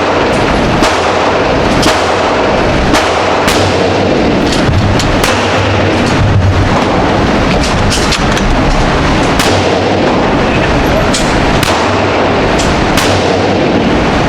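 Gunfire: many sharp shots at irregular spacing, roughly one or two a second, over a steady, loud background noise.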